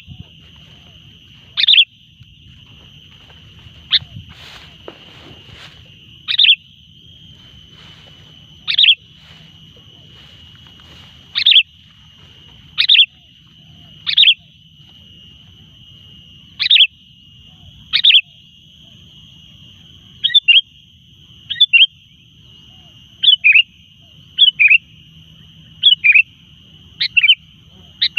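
Sooty-headed bulbul calls: short, sharp notes repeated every second or two, turning into quick doubled notes about two-thirds of the way through, over a steady high-pitched drone.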